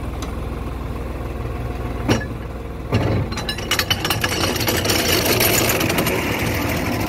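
New Holland 5620 tractor's diesel engine running steadily with a mulcher hitched behind. A knock comes about two seconds in and another at three, after which the sound grows louder and rougher, with a run of rapid clicks.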